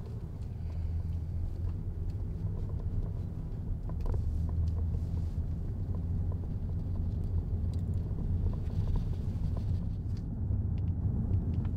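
Car cabin noise while driving: a steady low hum of engine and road heard from inside the car, with a few faint ticks.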